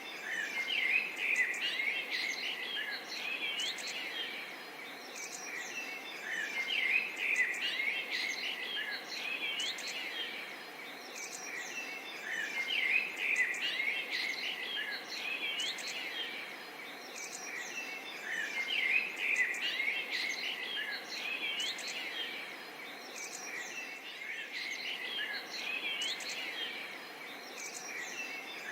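Forest ambience of many small birds chirping and twittering, with the chirping swelling in clusters about every six seconds over a steady background hiss.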